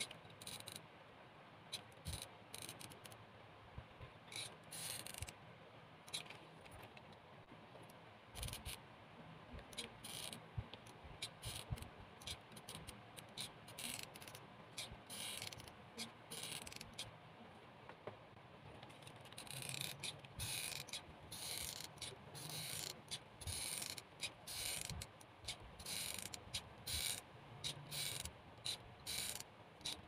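Hot glue gun and seashells being handled: irregular small clicks and scrapes, sparse at first and busier in the second half.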